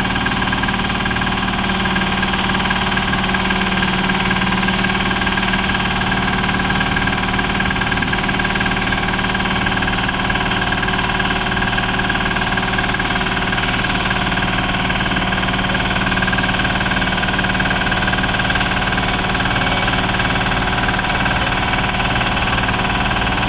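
Heavy-haul rig's diesel engine idling steadily, a constant drone with no change in speed.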